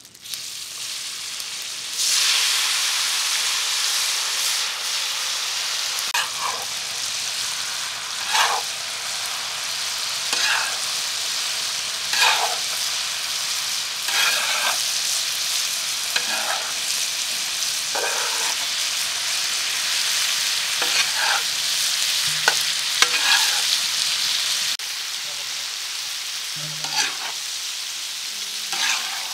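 Boiled mutton pieces frying and sizzling on a large iron tawa, the sizzle rising sharply about two seconds in as the meat lands on the hot pan. A flat spatula scrapes and turns the pieces every two seconds or so.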